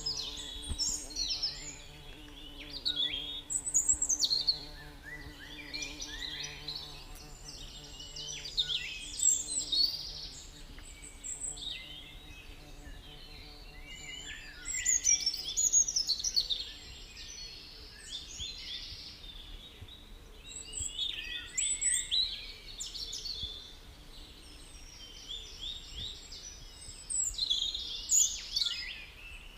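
Several birds singing and chirping, with many overlapping quick calls and sweeping notes that come in louder flurries every few seconds. A faint low steady hum sits underneath for roughly the first twelve seconds.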